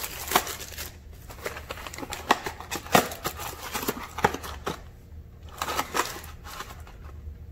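Foil Yu-Gi-Oh! Legendary Duelists Season 1 booster pack crinkling and crackling as it is handled and opened, in irregular sharp crackles.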